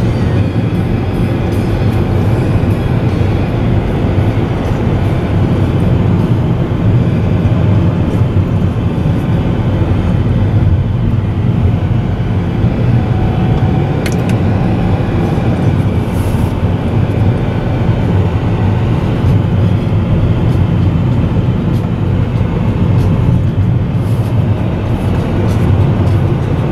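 Steady low rumble of a moving car heard from inside its cabin: engine and tyre noise from driving on a road.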